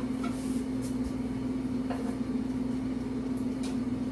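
A steady machine hum, like a fan or motor, with a few faint light clicks and taps.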